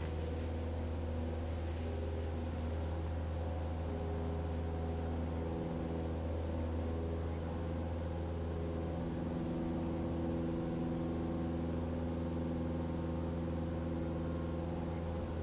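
Cessna Skyhawk's piston engine and propeller running steadily at full power, heard from inside the cabin, with a faint steady high whine alongside.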